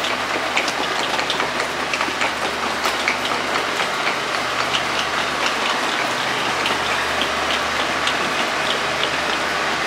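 Steady noisy rumble of a standing KTM Intercity train idling at an underground platform, with a low hum under it and scattered short, high clicks.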